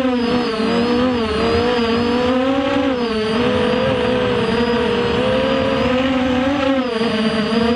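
FPV racing quadcopter's motors and propellers whining, the pitch rising and falling with the throttle as it flies laps.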